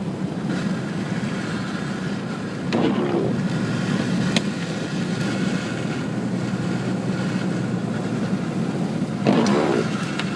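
Cabin noise of a 1998 Subaru Legacy Outback being driven: the flat-four engine and the tyres on the road, running steadily. Two brief louder whooshes come about three seconds in and again near the end.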